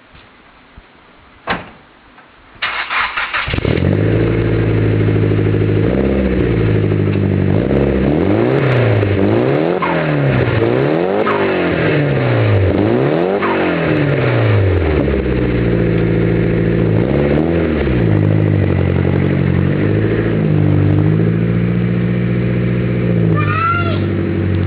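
Nissan Silvia S15's turbocharged SR20DET four-cylinder engine, cranked and catching about three seconds in after a single click, then blipped repeatedly, with turbo compressor flutter as the throttle snaps shut, before it settles to a steady idle.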